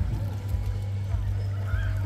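Background electronic music in a break: the beat drops out and a steady low bass note is held.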